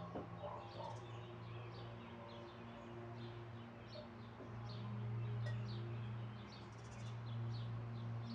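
Small birds chirping in short, repeated high calls, over a low, steady drone of ambient music.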